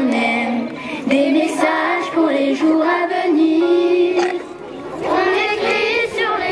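A group of children singing together in unison, with a short break between phrases about four and a half seconds in.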